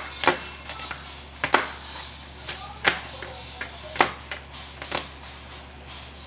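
Chef's knife chopping red onion on a plastic cutting board: about ten irregular sharp knocks of the blade against the board, stopping about five seconds in.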